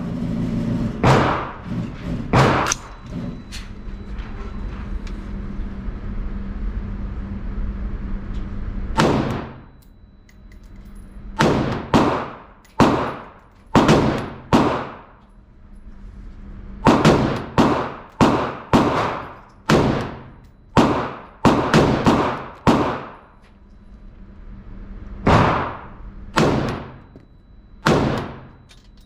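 AR-15-style rifle fired in a long string of single shots, about two dozen in all, in quick groups with short pauses between them, each shot trailing off briefly. A low steady hum runs under the first few seconds.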